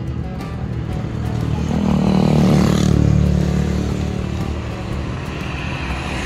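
Road traffic passing: a motor vehicle's engine swells to its loudest about two to three seconds in and then fades, and another vehicle, likely a motorcycle, approaches near the end.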